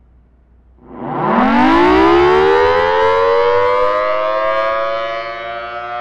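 Federal Signal Thunderbolt rotating outdoor warning siren starting up during a tornado siren test. About a second in it winds up from silence, its pitch rising quickly before settling into a steady, loud wail with several tones. Near the end it grows a little quieter as the rotating horn turns away.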